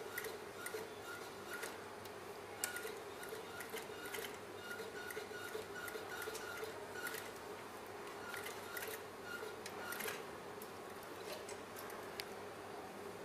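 Sewing machine running slowly, stitching fabric to a metal zipper tape: a steady motor hum with light, uneven ticking and a few sharper clicks.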